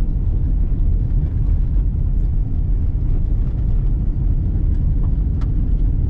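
Car driving on a gravel road, heard from inside the cabin: a steady low rumble of tyres and engine, with a few faint ticks.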